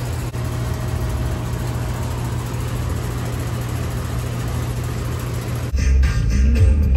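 A steady, low, engine-like drone. Near the end it gives way to background music with a beat.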